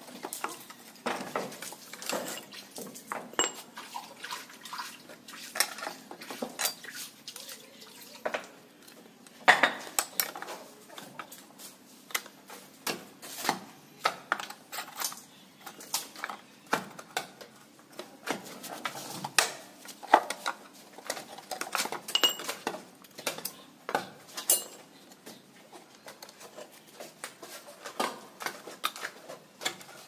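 Steel rebar clinking and clanking against a steel bending pipe and the steel pins of a wooden jig as it is bent by hand into rings: irregular sharp metallic clicks and knocks, about one or two a second.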